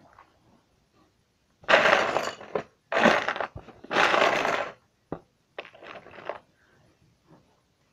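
Loose Lego pieces clattering and rattling as they are rummaged through: three loud bursts, about a second apart, then a few lighter clicks.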